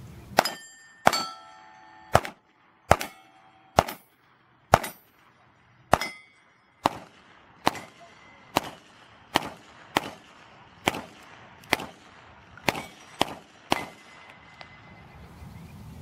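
A string of about seventeen pistol shots at steel targets, unevenly spaced at roughly one a second, with the last three quicker. Several shots are followed by the short metallic ring of a steel plate being hit.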